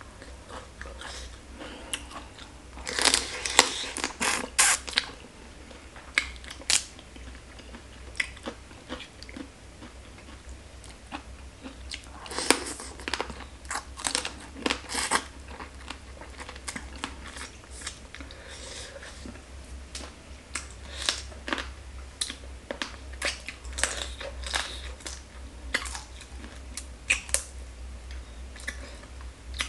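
Close-miked mouth sounds of eating pickled raw crab: chewing, sucking and biting, with sharp wet clicks and crunches. There are louder clusters of crunching about three seconds in and again about twelve seconds in. A faint low hum runs underneath.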